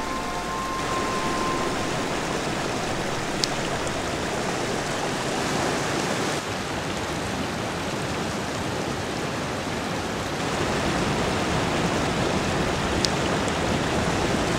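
Flowing water rushing steadily, with two small ticks, one a few seconds in and one near the end.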